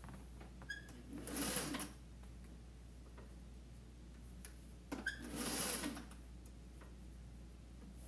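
Sewing machine stitching in two short runs of about a second each, each starting with a brief whine as the motor picks up, with a steady low hum between runs.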